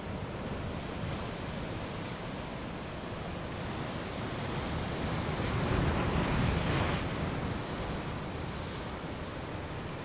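Ocean surf on a rocky shore: a steady wash of breaking waves that swells to a louder wave about six seconds in, then eases off.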